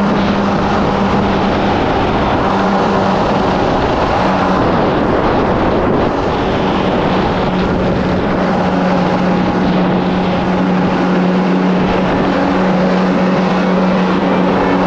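2017 Kawasaki SX-R 1500 stand-up jet ski's four-stroke four-cylinder engine running at steady speed, over the rush of water and spray along the hull. The engine note dips slightly about five seconds in, then holds steady.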